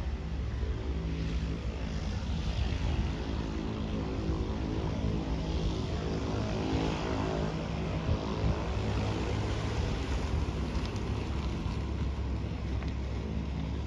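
Cessna 208B Grand Caravan's turboprop engine and propeller running steadily as the aircraft rolls away down the runway, a continuous drone with a hiss on top.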